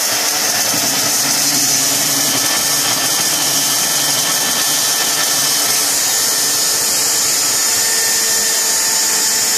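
DeWalt portable metal-cutting bandsaw running and sawing through a piece of rebar: a loud, steady hiss and whine of the motor and the blade in the steel.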